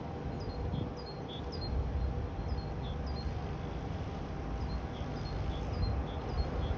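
Distant jet rumble from a McDonnell Douglas KC-10A Extender's three turbofan engines at takeoff power as the tanker rotates and lifts off. A small bird chirps repeatedly over it in short high notes.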